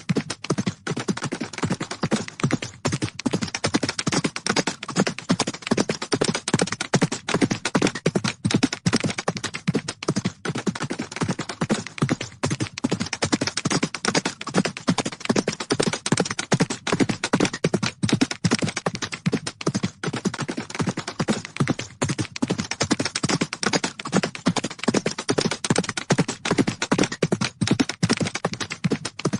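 Horse hooves galloping on the ground: a continuous, rapid drumming of hoofbeats that keeps up at an even level.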